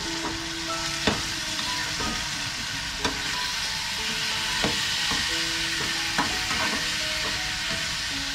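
Chinese broccoli and pork sizzling in a frying pan while a metal spatula stirs and turns them, knocking sharply against the pan every second or so.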